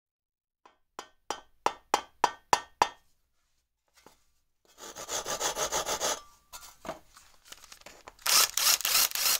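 Hand saw cutting wood in quick rasping strokes, loudest near the end, after a run of about eight sharp, slightly ringing knocks in the first few seconds.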